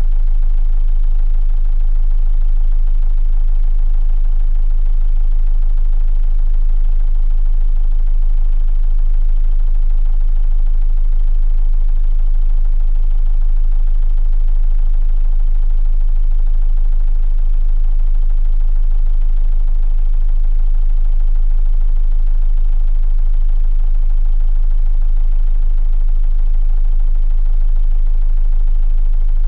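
A 45 ft sailboat's inboard diesel engine running steadily at one constant speed, heard from inside the aft cabin. A deep, even hum dominates, with no change in speed.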